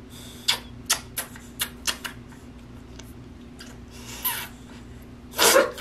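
A toddler's kisses on a face: a quick series of small lip smacks, then a louder, longer smack or breath near the end. A steady low hum from an electric fan runs underneath.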